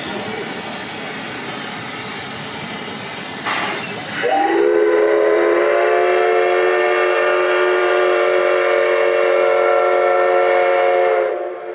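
C56 steam locomotive venting steam with a steady hiss. About four seconds in its steam whistle opens, the pitch rising briefly, and it sounds one long blast of several tones held steady for about seven seconds before stopping short.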